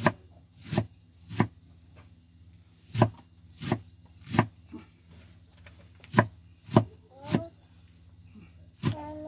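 Knife chopping on a cutting board: sharp knocks in three groups of three strokes.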